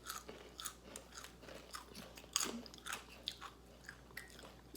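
Chewing and crunching hard peri peri chicken-flavoured potato crisps, a run of irregular crisp crunches, a few a second.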